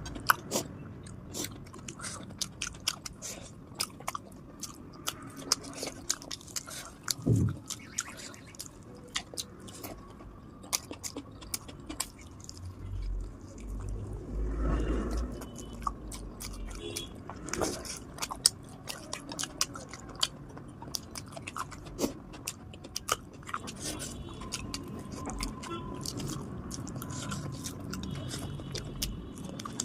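A person chewing and biting chilli chicken and pulao close to the microphone, with frequent irregular small mouth clicks. There is a brief low rumble about halfway through.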